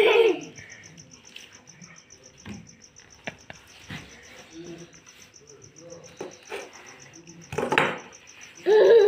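A faint, high chirp from an insect pulses evenly throughout, with a few soft clicks in between. About three-quarters of the way in there is a short breathy burst, and just before the end a young child's voice rises in a high-pitched sound.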